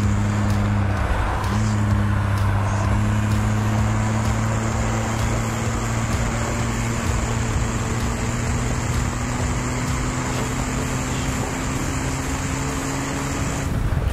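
Stock BMW 330ci's 3.0-litre straight-six under way on a race track, heard from inside the open-top cabin with wind rushing past. The engine note dips briefly about a second in, then climbs slowly and steadily in pitch as the car accelerates.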